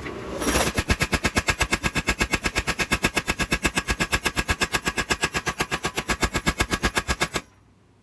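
Mechanical power hammer striking a hot Damascus steel billet between its dies in a rapid, even run of about seven blows a second, drawing the bar thinner and wider. The hammering starts about half a second in and stops abruptly near the end.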